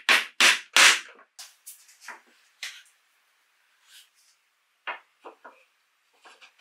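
A wooden frame is knocked and pressed onto a wooden tabletop board: four sharp wooden knocks in the first second, then lighter, scattered clicks and taps as it is handled.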